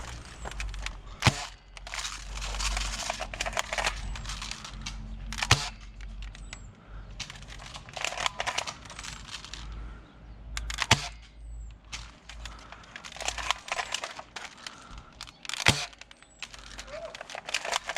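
Airsoft guns firing single shots: four sharp snaps spread several seconds apart, with crunching and rustling between them.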